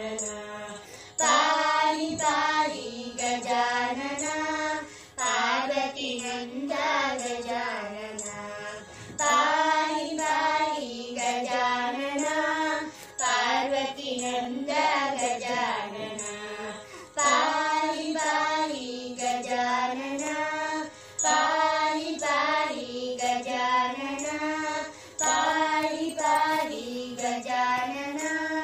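Children singing together in unison, a melody in phrases of about four seconds with a short break between each.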